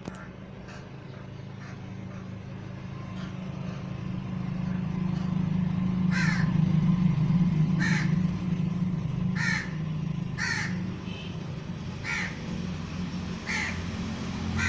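Crows cawing: a few faint caws at first, then a run of loud, harsh caws about every one and a half seconds. Under them runs a low steady rumble that grows louder about midway.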